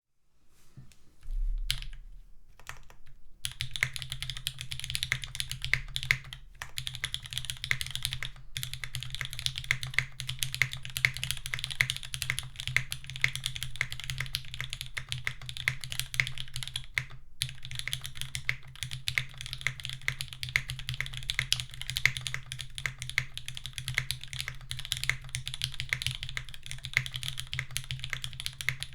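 Typing on a Sangeo60 mechanical keyboard with an aluminium plate, lubed and filmed SP-Star White Meteor switches and GMK keycaps. A few single key presses come first, then about three seconds in, steady fast typing with a few brief pauses.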